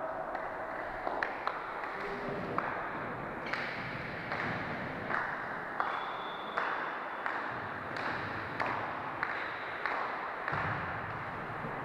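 A volleyball being hit or bounced, with a short sharp knock about every two-thirds of a second over the steady noise of a sports hall.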